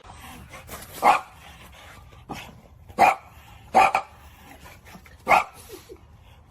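A dog barking four times, in single barks a second or two apart.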